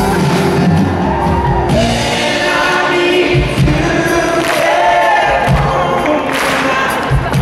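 Live music with singing, recorded from within the audience: a male singer with keyboard accompaniment, and many voices singing together as the crowd joins in.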